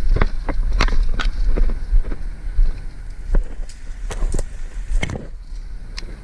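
Low rumble of wind or handling noise on the microphone, with a dozen or so irregular sharp clicks and knocks scattered through it.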